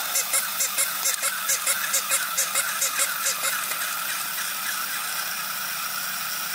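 Battery-powered plush walking rabbit toys running: a small motor whirring with rapid, even clicking of the walking mechanism, about five clicks a second. The clicking fades about two-thirds of the way through while the whir carries on.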